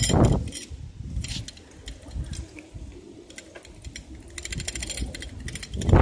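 Bicycle rolling over grass paving blocks: rattling and rumbling, with stretches of rapid, even freewheel ticking while coasting. The rumble is louder at the start and again near the end.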